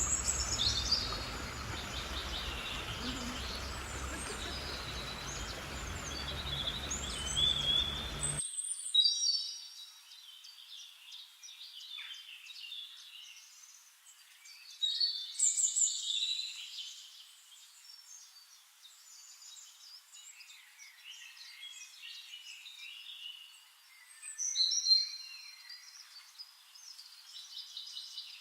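Birds chirping repeatedly in short, high calls. For the first eight seconds or so a steady rushing background noise lies under them, then cuts off suddenly, leaving only the chirps.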